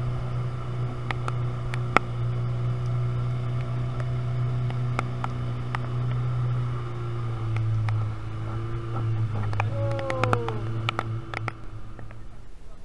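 Small outboard motor on an aluminium boat running steadily at speed under the load of towing a rider, with scattered sharp clicks; its pitch drops slightly a little past halfway, and the drone stops abruptly just before the end.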